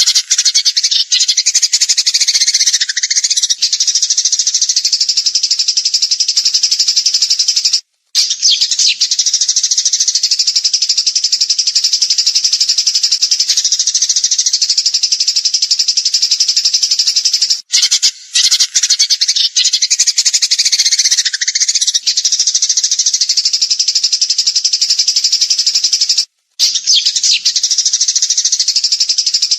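Songbird singing a loud, unbroken run of rapid high trills and chatter in the fast 'tembakan' style, in long phrases about nine seconds apart with brief gaps between them.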